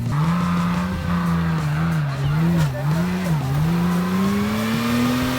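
Nissan Patrol Y61's TB42 4.2-litre straight-six petrol engine running hard off-road. The revs drop and pick up three times in quick succession about two seconds in, then rise steadily.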